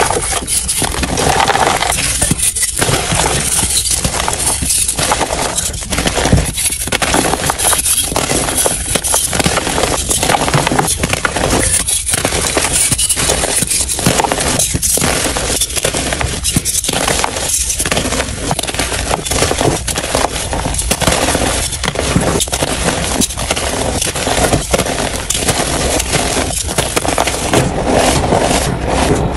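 Dyed gym chalk blocks crushed and crumbled by gloved hands into soft powder: a dense, continuous run of dry crunching and crumbling, played back at double speed.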